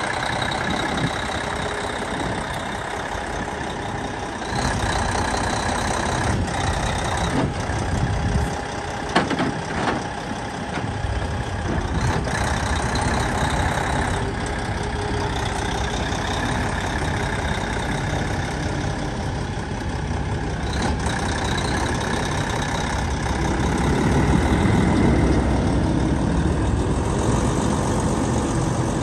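Western Star heavy-haul truck's diesel engine running steadily while hauling a house on a building-moving trailer, louder for a few seconds near the end. A few sharp knocks about nine seconds in.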